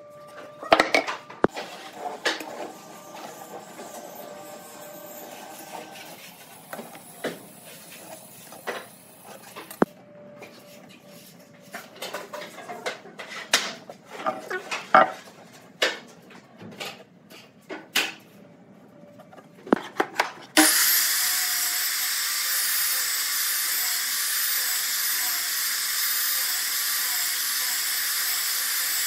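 Taps and scratches of a pencil and steel square marking pine beams. About two-thirds of the way in, a Ryobi sliding miter saw starts abruptly and runs with a loud, steady high whine and hiss.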